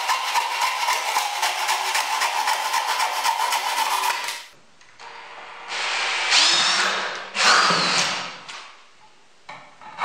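A table saw runs with a steady tone, cutting through a plastic sprayer tank, and stops after about four seconds. Then a cordless drill runs in two bursts of about a second each, its pitch rising and falling, drilling into the plastic tank.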